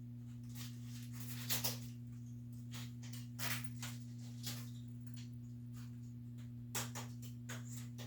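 A handful of light clicks and knocks, as of washer parts and tools being handled during disassembly, over a steady low electrical hum.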